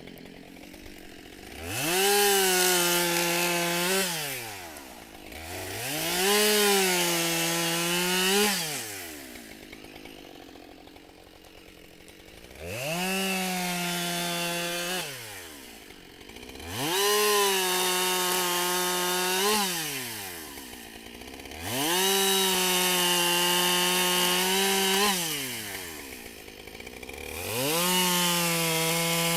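Husqvarna 572XP two-stroke chainsaw with a 28-inch bar cutting hard black locust. The engine is opened to full throttle and let back to idle about six times, each burst lasting two to four seconds.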